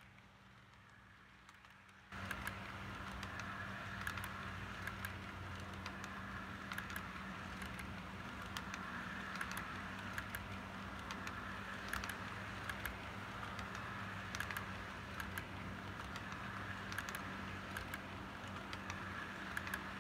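Model train piggyback flatcars rolling past on track, wheels clicking irregularly over rail joints over a steady rolling hum. The sound starts abruptly about two seconds in.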